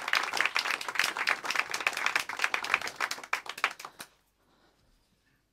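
Audience applauding: dense, irregular clapping that thins out and stops about four seconds in.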